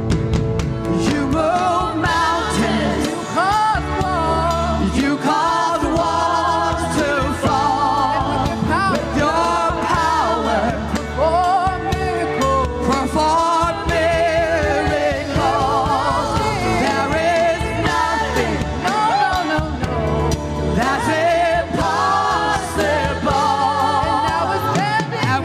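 Gospel music with singing: a lead voice sings melodic runs with vibrato over sustained keys and bass, with choir-like backing.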